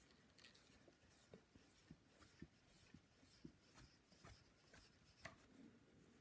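Very faint rubbing and soft scattered ticks of a reed cord being wound turn by turn around a clarinet mouthpiece and reed by hand.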